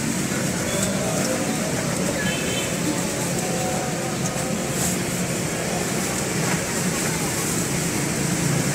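Steady street ambience: traffic noise with indistinct voices in the background, with no single sound standing out.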